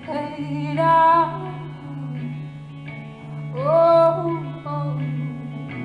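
A woman singing over her own electric guitar, live through a PA. A low guitar note holds underneath while she sings two loud phrases that swoop up in pitch, about a second in and again about four seconds in.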